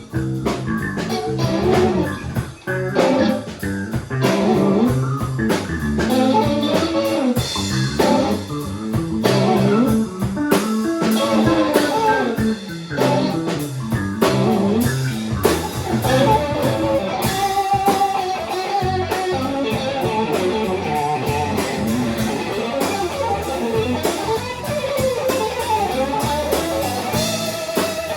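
Band music with no singing: an electric guitar plays a bending lead line over bass and drums.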